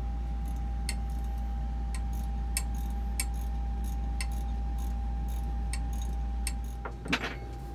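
Scattered light metallic clicks and taps from hands working on the pump fittings in the engine bay, about one or two a second and irregular, over a steady low hum and a faint steady tone. A louder clatter comes near the end.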